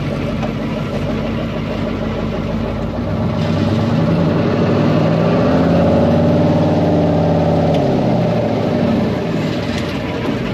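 Cummins V-555 'Triple Nickel' V8 diesel in a 1972 Brockway truck, heard from the cab, running steadily, then revving up and falling back down over about five seconds in the middle.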